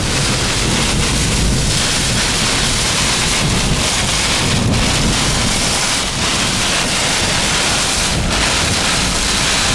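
Heavy wind-driven rain and strong wind battering a vehicle, a steady loud rush of rain on the windshield and body over a low buffeting rumble of wind. These are the rear-flank downdraft winds of a tornadic supercell.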